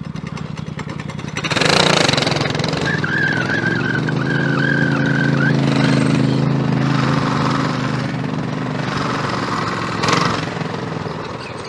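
Worn 212cc single-cylinder go-kart engine, which is on its last legs and leaking oil, running steadily at low speed. There is a louder swell about two seconds in and a brief burst near the end.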